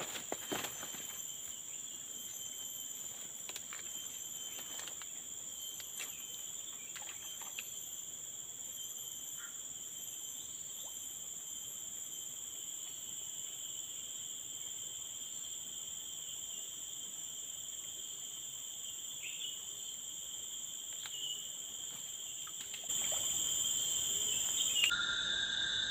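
Steady chorus of forest insects, a continuous high-pitched ringing at two or three fixed pitches, with a few faint clicks in the first several seconds; it grows louder near the end.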